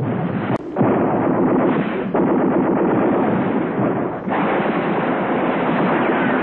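Dense, continuous gunfire and blasts run together into one crackling din, with no single shot standing out. The sound drops out briefly three times: about half a second in, about two seconds in and about four seconds in.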